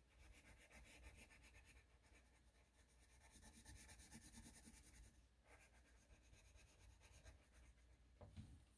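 Faint scratching of a graphite pencil shading on drawing paper, in many quick small strokes, with a soft tap near the end.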